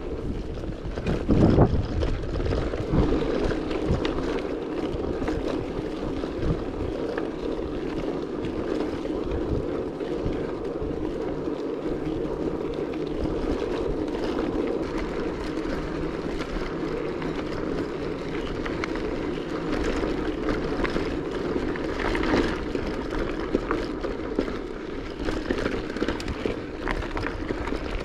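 Steady rushing and rumbling of wind over the microphone and tyres rolling while riding along, with a brief knock about a second and a half in.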